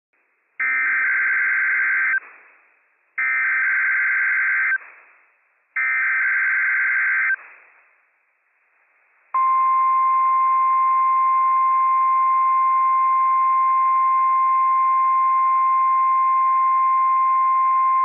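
NOAA Weather Radio test alert: three short bursts of warbling SAME digital header tones, each about a second and a half long. After a brief pause comes the warning alarm tone, one steady high beep near 1050 Hz held for about nine seconds.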